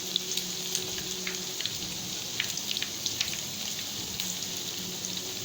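Egg-dipped bread slices shallow-frying in hot oil: a steady sizzle with scattered small pops and crackles as the toast turns golden brown.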